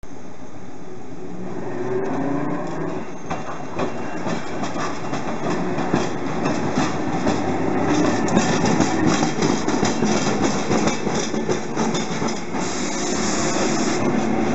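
Hankai Tramway Mo 351-type tram running past, its wheels clacking over rail joints and the flat crossing in a rapid string of clicks over a steady rumble. A brief high hiss comes near the end.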